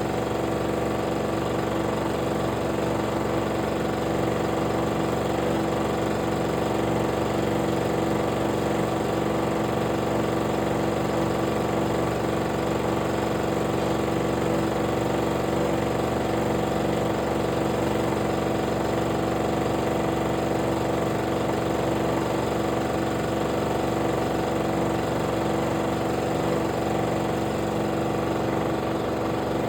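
Steady hum of a running motor, a constant drone that holds at one level throughout.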